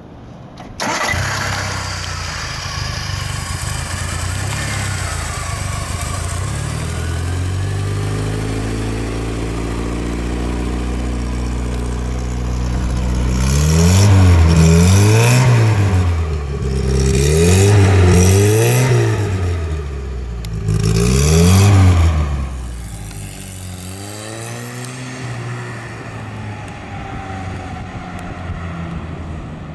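1977 MG Midget's 1.5-litre four-cylinder engine, heard through its dual exhaust, idling steadily. About halfway through it is revved several times in quick blips. It then runs quieter as the car pulls away.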